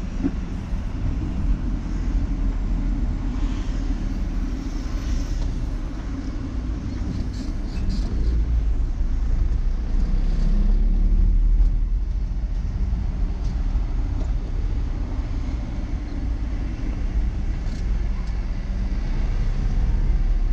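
Car driving through city traffic, heard from inside the cabin: a steady low rumble of engine and tyres on the road, a little louder around the middle.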